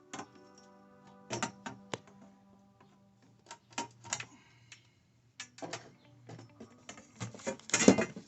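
Scattered sharp clicks and clinks of a tubing cutter and a cut copper pipe being handled, with the loudest clatter near the end, over soft background music.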